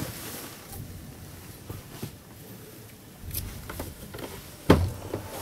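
Handling noise in a small truck cab: rustling and light clicks, with one sharp thump near the end.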